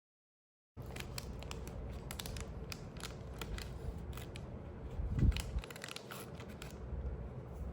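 Packaging being handled and opened up close: a quick run of small crinkles and clicks, with one louder soft thump about five seconds in. It starts after a short dead-silent gap.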